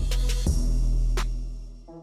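Background music: an electronic beat with deep bass and sharp drum hits.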